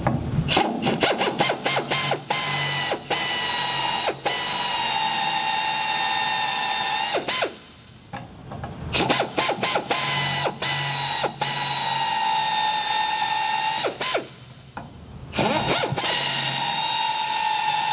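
Pneumatic pistol-grip drill drilling out the rivet heads in an aircraft's aluminium wing skin. It runs with a steady whine in stretches of several seconds, the pitch sinking a little as the bit cuts. There are quick trigger stutters and two short stops between rivets.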